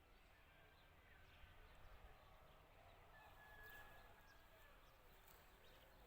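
Near silence: faint outdoor ambience with faint bird calls, including one thin, steady high note held for a second or so near the middle.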